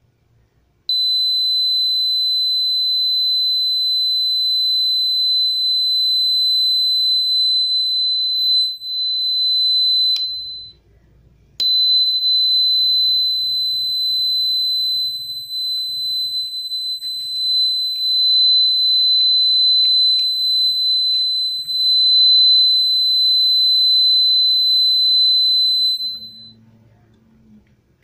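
Piezo buzzer of a homemade 9-volt fire-alarm circuit, set off by a flame held at its contacts, sounding one steady high-pitched tone. The tone cuts out for about a second near the middle, then carries on until it stops shortly before the end.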